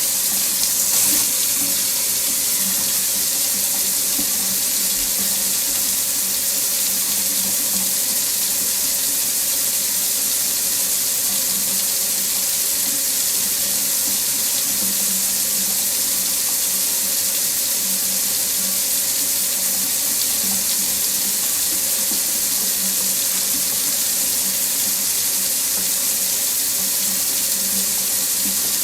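Kitchen or bathroom faucet running steadily into a sink: an even hiss of falling water, with a brief brighter splash about a second in.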